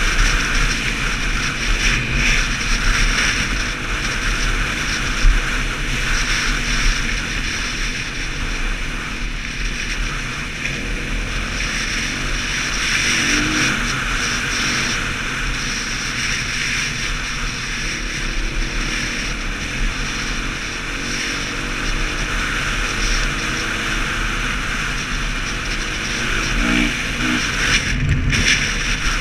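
A 450cc single-cylinder four-stroke dirt bike engine running steadily at riding speed, heard from the rider's helmet, with wind rushing and rumbling over the microphone.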